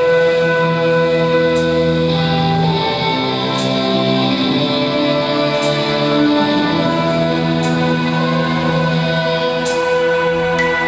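Music of long held, slowly changing chords in sustained wind-like tones, with a few faint sharp ticks scattered through.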